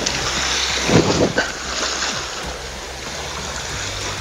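Sea waves washing and breaking against a rocky shore, a steady rush of water that swells about a second in, with some wind on the microphone.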